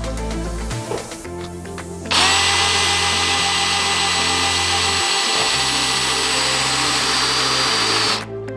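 Power drill driving a screw through galvanized corrugated metal roofing into a wooden frame. It runs steadily for about six seconds, starting about two seconds in and cutting off suddenly near the end.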